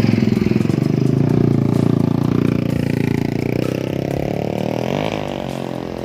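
Several small motorcycles riding up a rough dirt track and passing close by, their engines running loud. About halfway through the pitch climbs, then drops as the bikes go past and the sound fades away.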